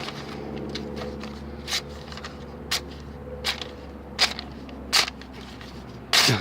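Knife blade slicing through a sheet of paper: about six short, sharp rasping cuts, the later ones louder, over a steady low hum.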